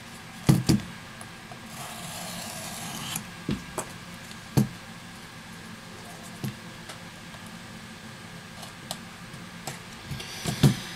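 Handling noise of an opened iPad Air 2's aluminium housing being lifted, turned and put down on a silicone repair mat: a few sharp knocks, the loudest about half a second in, and a brief scraping rub around two to three seconds in.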